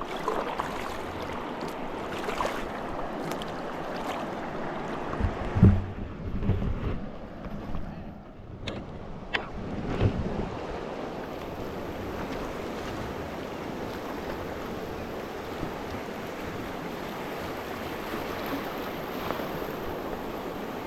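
Steady rush of river whitewater around a raft running a rapid. A few low thumps come between about five and ten seconds in.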